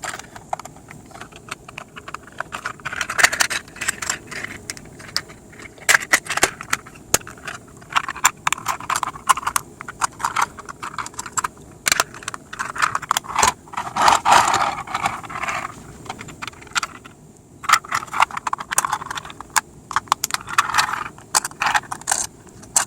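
3D-printed plastic parts of a foldable model van clicking, snapping and scraping as they are folded and pressed together by hand, with many irregular sharp clicks.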